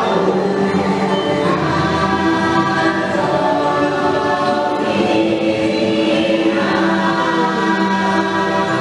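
Choir singing a slow chant over music, with layered notes held for a second or more: the ride's chanting soundtrack.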